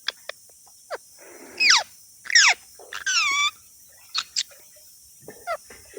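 Pet parrot calling: a string of short squawks and chirps, several sweeping down in pitch, the loudest about two and a half seconds in.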